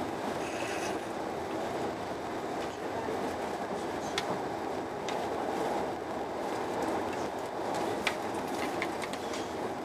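Steady running noise of a Eurostar Italia train, heard from inside the passenger car as it travels, with a few sharp clicks from the wheels on the track, the loudest about eight seconds in.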